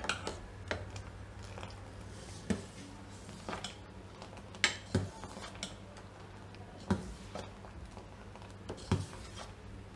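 Steel ladle stirring hot milk in a stainless steel pot, clinking against the pot's side now and then: about eight scattered taps over a low steady hum. The milk is curdling with lemon juice into paneer.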